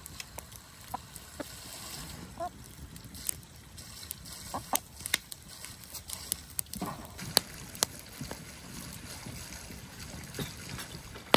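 Domestic hens foraging: a few short clucks, mixed with scattered sharp clicks and knocks, the loudest a little after the middle.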